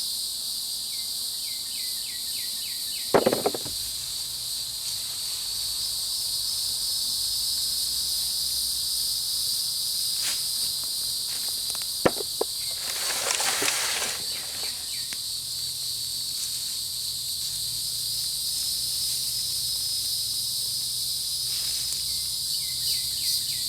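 A steady chorus of insects shrilling in several high pitches, broken by the handling noise of digging in mulch: a thump a few seconds in, then a sharp click and a short rustle about halfway through.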